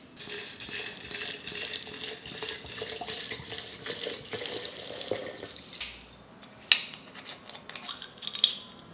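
Liquor poured from a bottle into a large glass jar of green plums and rock sugar, a steady pour that stops about six seconds in. Then two sharp clicks of glass and bottle cap near the end, as a glass soju bottle is picked up and its cap opened.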